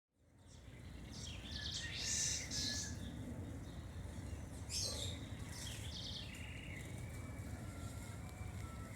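Birds chirping in short bursts, loudest about two seconds in and again around five to six seconds, over a steady low background rumble.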